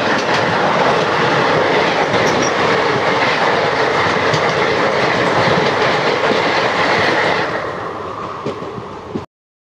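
Haate Bazare Express passenger coaches rushing past on the adjacent track, a loud rush of wheel and rail noise with clickety-clack over the rail joints. It eases off in the last couple of seconds, then cuts off abruptly.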